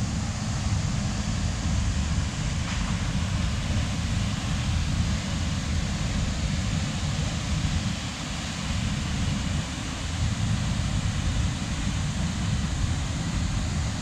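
Steady rushing of a waterfall pouring into its rock pool, with a strong low rumble under the hiss.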